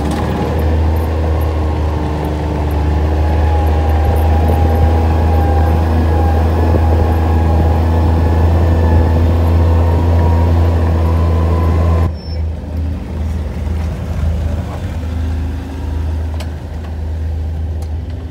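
Engine of an off-road side-by-side utility vehicle running at a steady drone while riding. About twelve seconds in the sound cuts off abruptly to a quieter, uneven engine rumble.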